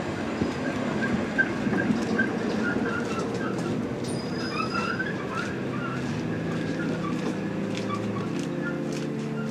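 A Class 378 electric train standing at the platform with a steady background noise, and small birds chirping over it in the first half. From about six seconds in, a set of steady tones joins in and shifts upward in steps.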